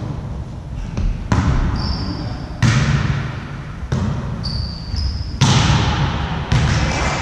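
A volleyball being struck again and again in a rally, about five sharp smacks a second or so apart, each echoing around a large gym hall. Short high squeaks sound between a couple of the hits.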